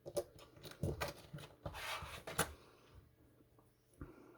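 Lock-picking rake scraping and clicking in the keyway of a Master Lock No. 5 laminated steel padlock as it is raked. Irregular sharp clicks and short scrapes, busiest in the first two and a half seconds, then sparser.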